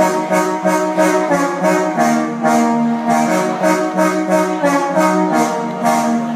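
Latin dance music played over a party sound system: a brass section of trumpets and trombones plays sustained melody notes over a steady quick beat of about three strokes a second.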